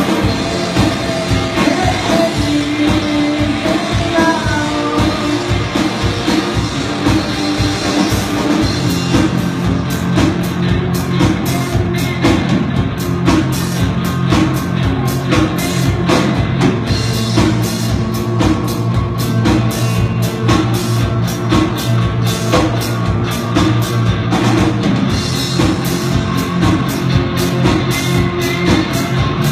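Live rock band playing guitars and drum kit, with singing, heard from the audience seats of a hall. About nine seconds in the drums settle into a steady, driving beat and the bass grows stronger.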